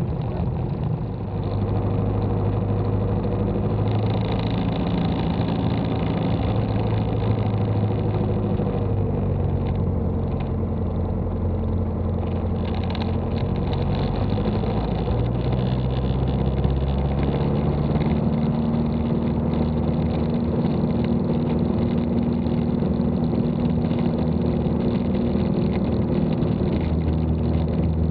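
Piper Cherokee PA-28's single piston engine and propeller running steadily, heard inside the cockpit. Its note shifts pitch a couple of times, around a third of the way in and again past halfway.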